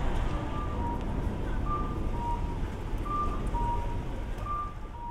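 Japanese pedestrian crossing's audible walk signal sounding its two-note cuckoo-style call, a high note then a lower one, repeating about every second and a half. This means the crossing is green for walkers. Beneath it runs steady street noise.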